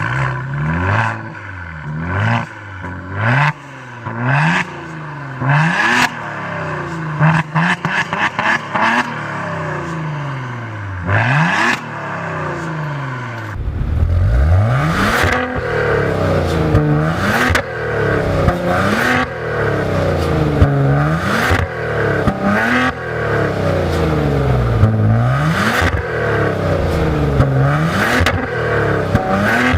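Alfa Romeo Giulia Quadrifoglio's 2.9-litre twin-turbo V6 revving repeatedly, its pitch climbing and dropping over and over, with sharp cracks among the revs. From about halfway through it gets louder and fuller, with quicker rises and falls.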